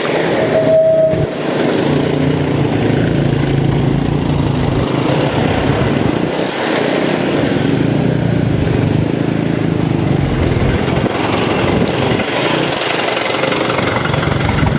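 Steady rush of air and tyre noise from a mountain bike riding along a concrete road, with the steady hum of a nearby motorbike engine under it.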